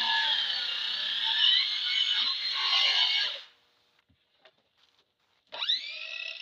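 Stihl chainsaw cutting through a cedar log, its pitch wavering under load, stopping abruptly about three and a half seconds in. After about two seconds of near silence with a few faint clicks, the saw revs up again with a quick rising whine and holds at high speed.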